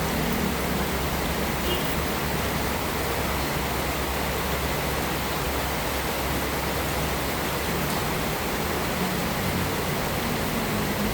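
Heavy rain pouring steadily on a roof, a thick, even hiss. A low rumble swells in the background near the end.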